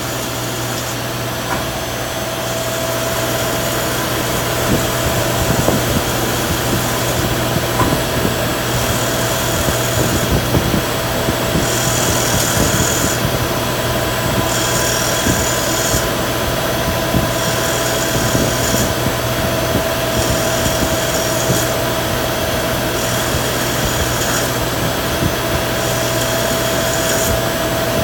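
Yang CNC lathe cutting metal bar stock dry, without coolant: a steady machine hum under a dense crackle of cutting and chips, louder from about three seconds in.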